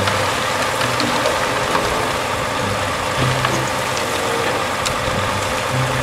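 Heavy dump truck's diesel engine running steadily while the truck unloads a load of soil.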